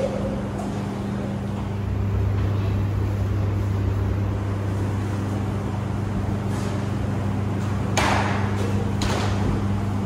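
Steady low hum of commercial laundromat washers and dryers running, growing a little louder about two seconds in. Two short, louder noisy sounds come about eight and nine seconds in.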